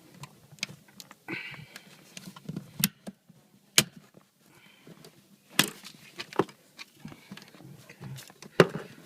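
Plastic seat trim cover being pried and snapped off by hand: a scattering of sharp clicks and knocks at irregular intervals.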